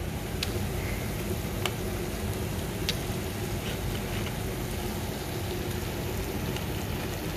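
Onion-tomato masala frying in coconut oil in a pan, a steady sizzle with a few sharp pops as pieces of raw crab go into the hot masala.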